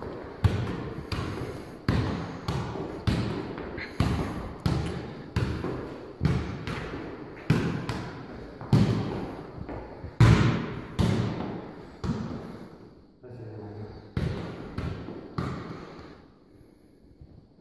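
A football being juggled, kicked up again and again with the foot and leg: a steady run of dull thuds, about two touches a second, each with a short echo from the room. The touches stop shortly before the end.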